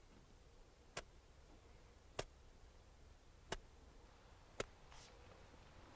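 A carabiner flint striker being struck over and over to throw sparks: about five sharp scraping clicks, a little over a second apart.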